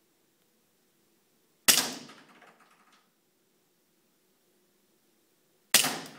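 KWC M1911A1 CO2-powered airsoft BB pistol firing twice, about four seconds apart; each sharp crack trails off in the room's echo over about a second.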